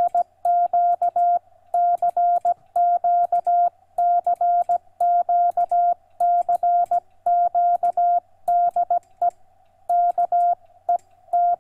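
Morse code (CW) calling CQ, hand-sent with paddles and heard as the Yaesu FTDX3000's steady single-pitch sidetone keyed into short and long beeps, with faint clicks. There is a short pause about nine seconds in.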